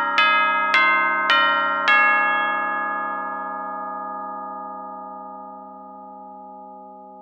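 Metal chimes struck four times in quick, even succession, about twice a second, then left to ring and slowly fade.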